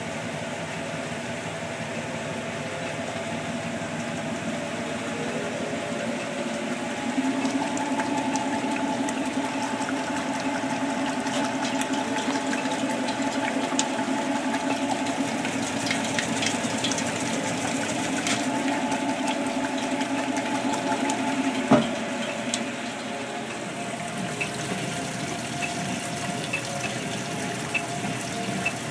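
Top-loading washing machines running: a steady motor hum with water pouring into the tub and splashing off it as the tub spins. A single sharp click about two-thirds of the way through.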